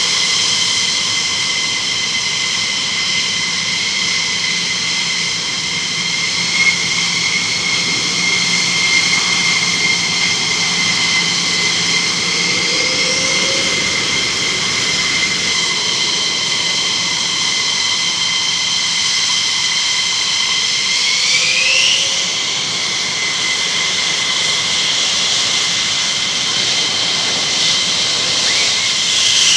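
F-15E Strike Eagle twin turbofan jet engines running at taxi power: a steady high whine of several tones over a broad roar. The whine sweeps up in pitch about two-thirds of the way through and shifts again at the very end.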